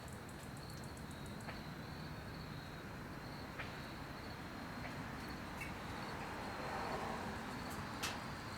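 Insects chirring steadily at one high pitch over a steady low rush, with a few faint sharp clicks, the sharpest near the end.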